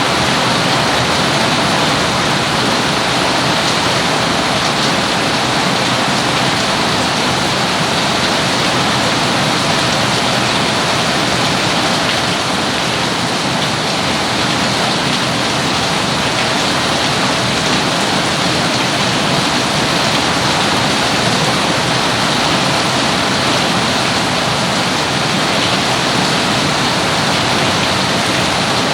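Heavy rain falling steadily: a loud, dense, even hiss with no breaks.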